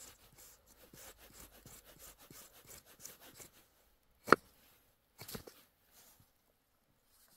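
Knife blade scraping a ferrocerium rod (metal match) in quick repeated strokes, then one loud sharp crack about four seconds in as the rod breaks under too much force, followed by a few lighter clicks.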